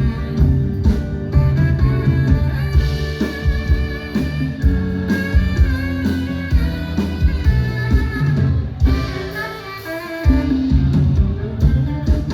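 Live band playing an instrumental passage, with guitar lines over a drum kit beat. The music eases briefly about ten seconds in, then the full band comes back in.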